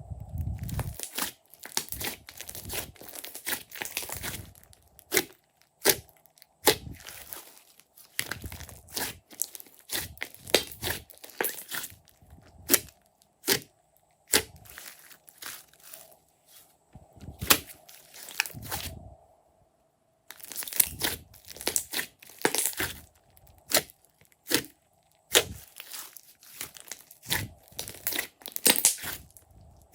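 Hands squishing, folding and stretching glossy slime, with irregular crackling, squelching and sharp pops of air pockets bursting, in handful-length bouts with short pauses between.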